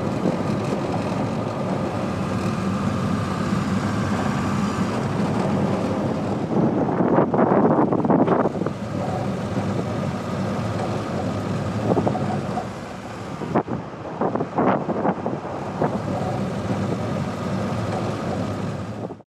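Car driving along a road: engine and tyre noise as a steady rumble, with wind buffeting the microphone in louder gusts. It cuts off suddenly near the end.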